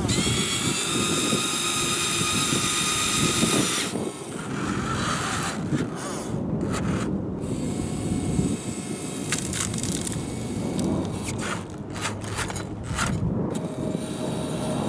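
Radio-controlled model wheel loader working in gravel: a steady high electric-motor whine for the first four seconds that cuts off suddenly, then crunching and clattering of gravel and stones as the loader moves up to the dump truck and tips its bucket load in.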